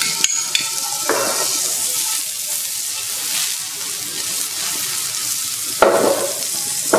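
Fish fillet shallow-frying in butter in a non-stick pan, with a steady sizzle. A couple of brief clatters come from the pan, about a second in and near the end.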